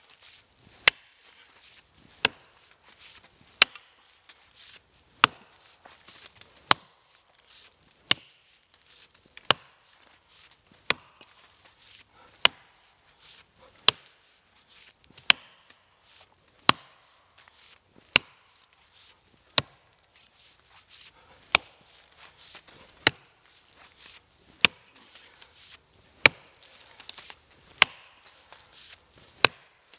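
Axe chopping into an oak tree's exposed roots at ground level: about twenty sharp strikes at an even pace, one roughly every one and a half seconds, with faint rustle and chip noise between blows.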